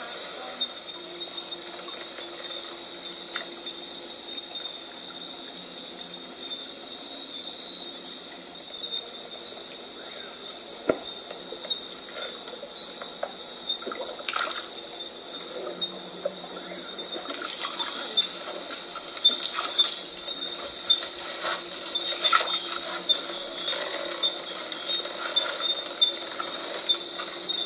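Steady, dense, high-pitched chorus of night insects trilling without a break. Scattered short knocks and clicks sound over it, more often in the second half.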